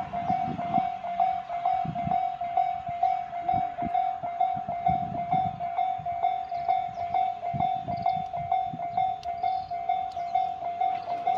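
Japanese railway level crossing alarm ringing, an even electronic ding repeating about two to three times a second at one pitch, the warning that a train is coming. An uneven low rumble runs underneath.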